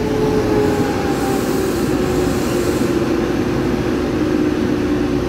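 Taiwan Railways push-pull Tze-Chiang express train braking to a stop alongside a platform: running rumble with a squealing tone that slowly drops in pitch, and a brief hiss about a second in.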